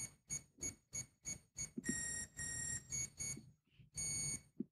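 Electronic speed controllers of a pair of electric ducted fans beeping as they power up and arm. A run of short, high beeps comes about three a second, then longer held tones mixed with a few more short beeps.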